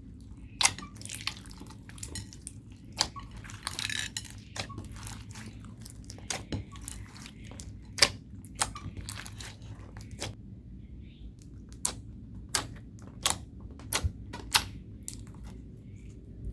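Homemade slime being squished and stretched by hand, giving an irregular series of sharp pops and clicks, with a brief stretch of denser crackling about four seconds in.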